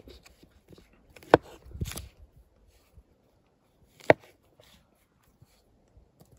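Scandi-ground knife cutting food, the blade knocking sharply on the cutting surface twice, about a second and four seconds in, with a few softer knocks and rustles between.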